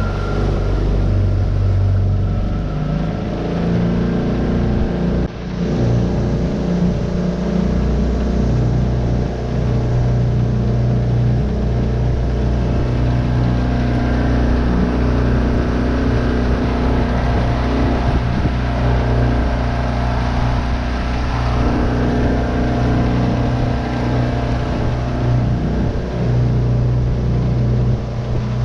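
Tohatsu 9.8 hp four-stroke outboard motor running steadily under way, with a brief dip about five seconds in.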